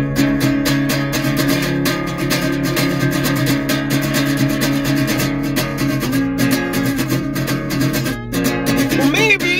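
Acoustic guitar strummed in a steady rhythm, chords ringing between strokes as an instrumental passage of a song. Near the end a singing voice comes in over the strumming.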